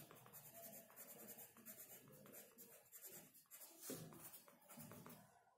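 Pencil writing letters on sketchbook paper: faint, quick scratching strokes of the graphite on the page.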